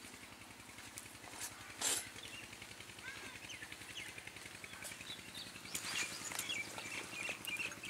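Old single-cylinder Petter diesel engine running faintly and steadily with a fast, even beat, while birds chirp. A sharp knock comes about two seconds in, and a few metallic clinks around six seconds in as the pump's pipe fitting is handled.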